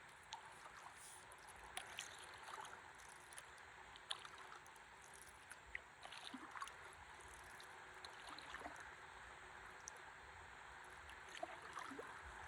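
Faint water trickling and lapping around a stand-up paddleboard drifting on a calm river, with scattered small drips and ticks.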